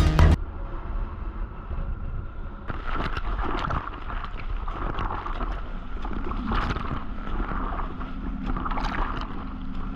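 Wind buffeting the microphone over sea water splashing around a small boat, with a low steady hum underneath and irregular gusts and splashes that grow stronger about three seconds in.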